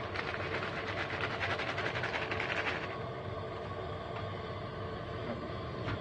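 A pot of water boiling, bubbling and crackling rapidly for about three seconds before it eases off, over a steady low hum.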